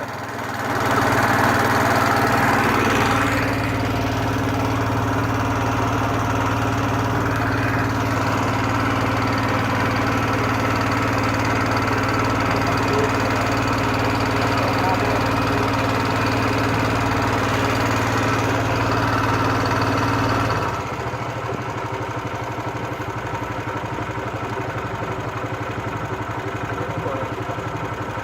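Small boat engine running steadily with a deep hum, then throttling back about twenty seconds in to a lower, quieter running.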